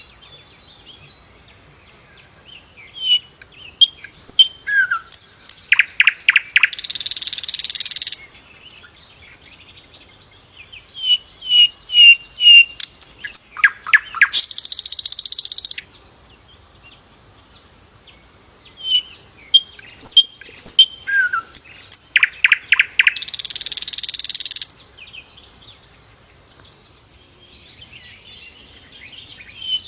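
Sikatan londo flycatcher singing a repeated phrase three times, about every eight seconds. Each phrase is a string of high chirping notes, then a fast run of clicking notes, then a harsh hissing buzz about a second and a half long.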